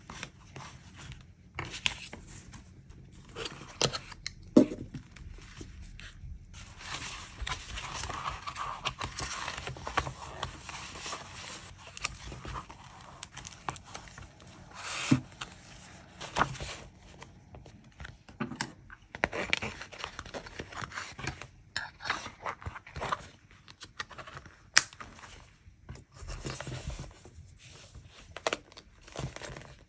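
Hands handling paper in a leather-covered notebook: irregular rustling, rubbing and scraping on the pages, broken by sharp clicks and taps, the loudest about four, fifteen and twenty-five seconds in. Near the end the notebook is closed and its elastic cord is pulled over the leather cover.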